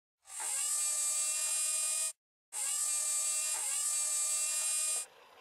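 Cartoon sound effect of an electric machine running, in two steady stretches of about two seconds each with a short break between; it stops suddenly about five seconds in.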